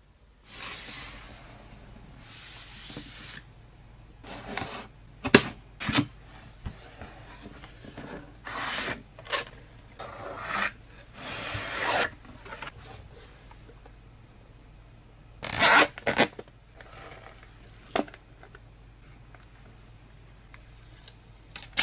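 Cotton-gloved hands handling a phone, its cardboard box and a plastic clip-on gamepad: short rubbing and sliding noises, with several sharp clicks and a louder scrape a little past the middle.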